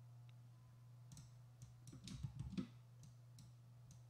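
Faint, scattered clicks from a computer mouse and keyboard, clustered in the middle, over a low steady hum.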